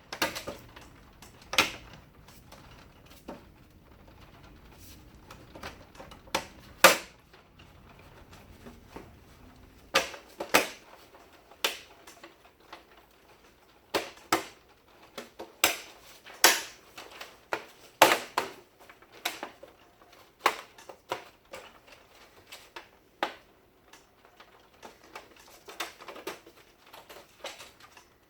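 Irregular sharp plastic clicks and knocks from parts of an HP LaserJet printer being handled and fitted during reassembly, loudest about 7 and 18 seconds in.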